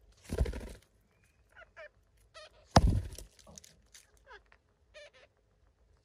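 Alexandrine parakeets giving several short, separate calls. A burst of rustling comes about half a second in, and a sharp thump near three seconds in.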